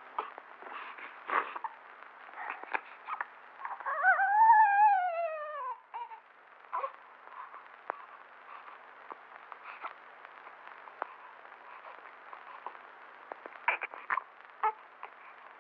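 A newborn baby gives one short cry about four seconds in, rising and then falling in pitch, over the crackle, hiss and scattered pops of an old film soundtrack.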